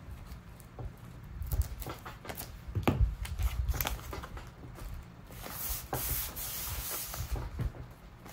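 Hands rubbing and smoothing paper on a junk-journal page, with scattered light taps and a soft thump about three seconds in, then a longer steady rub near the end.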